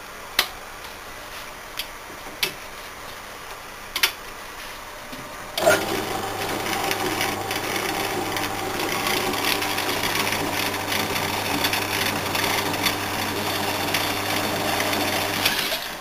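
A few clicks from the switch being handled, then about five and a half seconds in a home-built power hacksaw, driven by a British Thompson-Houston washing machine's worm-drive gear motor, starts up and runs with a steady electric motor hum and the mechanical noise of the saw frame. It runs quietly for about ten seconds and stops just before the end.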